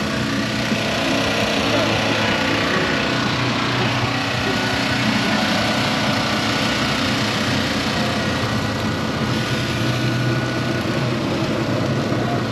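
A small engine running steadily with a constant low hum.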